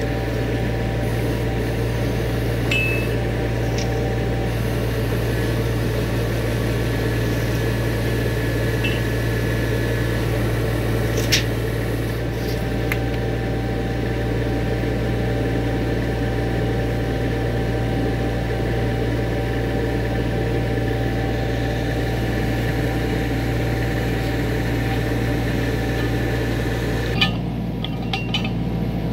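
Kubota U25 mini excavator's diesel engine idling steadily, with a sharp click about eleven seconds in and another near the end.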